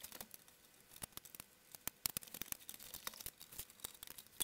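Faint, irregular clicks and small rattles as a stripped-down hi-fi unit's metal and plastic parts are handled during dismantling.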